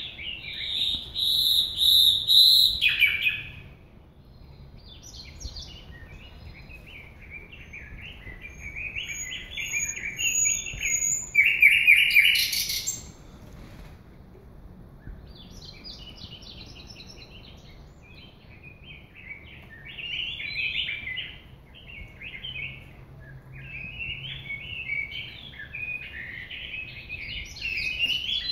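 Caged songbird singing a varied song of clear whistles, trills and chirps. It opens with a loud held whistle, and a loud burst of phrases comes a little before halfway.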